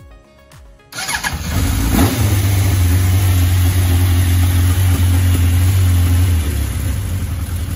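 Suzuki Katana's inline-four engine started on the electric starter, catching about a second in and then running steadily with a low hum, after five months without running. It settles slightly lower near the end.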